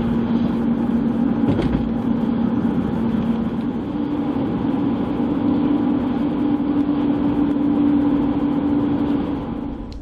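Car driving at road speed, heard from inside the cabin: steady engine and tyre drone whose hum steps up a little in pitch about four seconds in, then the sound drops away suddenly near the end.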